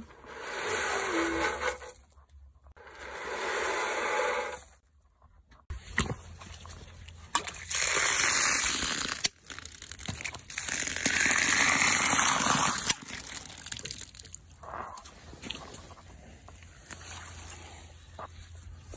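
Water pouring into a rubber bucket of horse feed pellets to soak them, in several separate stretches with short breaks about two and five seconds in.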